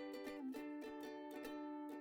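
Background music: a light instrumental carried by a plucked-string instrument, strummed in a steady, quick rhythm.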